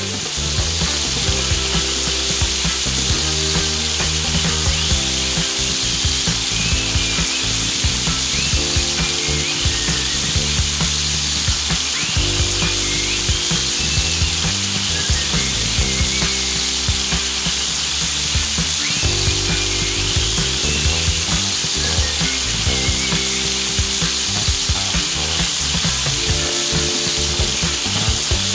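Steady sizzle of food frying in oil in a pan, under background music with slow-changing sustained notes.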